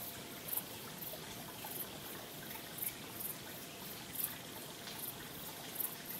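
Water trickling and babbling steadily, with small irregular splashes.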